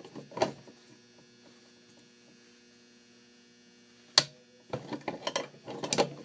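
Crowbar prying and knocking against a Master Lock No. 22 padlock clamped in a vise: a couple of metal clanks, a quiet pause, one sharp loud strike about four seconds in, then a quick run of clatters. A faint steady electrical hum lies underneath.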